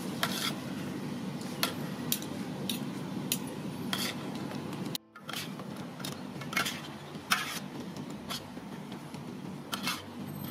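Metal fork and spoon clinking and scraping against a large aluminium tray as noodles are tossed and mixed, in irregular short clicks over a steady low hum. The sound drops out briefly about halfway.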